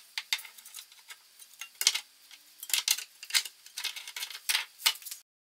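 Irregular metallic clinks and scrapes of a spanner and the radiator's metal fittings knocking against engine-bay parts while the radiator is worked into place, ending abruptly near the end.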